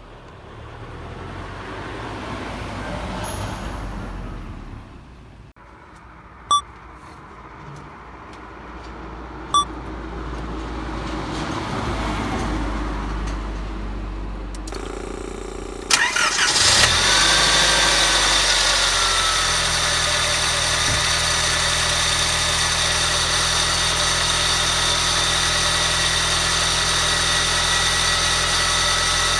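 Nissan DR30 Skyline's FJ20 four-cylinder engine starting about halfway through and then idling steadily, with a steady high-pitched whine over it from the failing power-steering pump pulley. Earlier there are two short, sharp sounds about three seconds apart.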